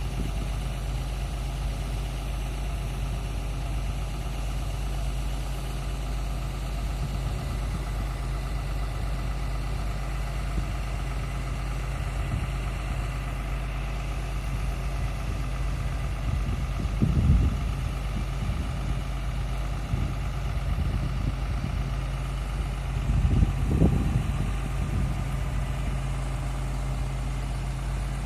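Engine of a horizontal directional drilling rig running steadily with a low hum, swelling briefly twice, once a little past halfway and again near the end.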